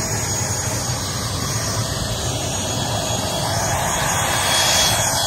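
Steady drone of a vehicle in motion: a low engine hum under an even rushing noise, swelling slightly near the end.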